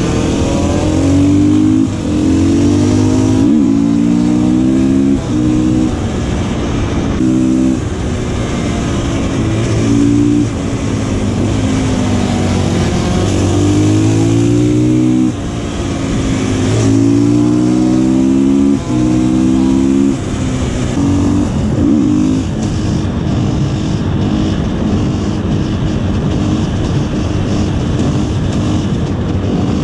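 Supermoto motorcycle engine accelerating hard through the gears, its pitch climbing again and again with a short break at each gear change. After about twenty seconds it settles into a steady cruise.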